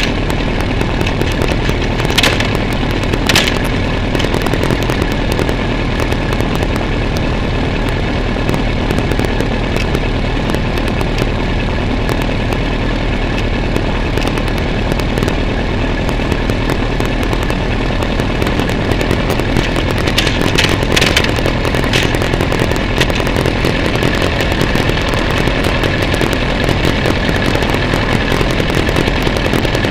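Motorcycle engine idling steadily while stopped in traffic, picked up close by a bike-mounted camera. A few brief crackling sounds break through the drone, twice a few seconds in and again in a short cluster about two-thirds of the way through.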